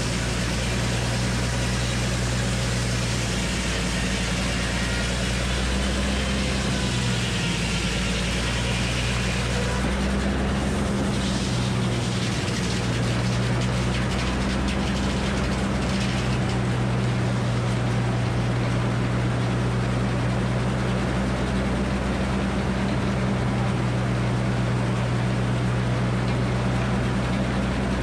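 Frick circular sawmill running with a steady low drone, its big blade sawing through a red oak log.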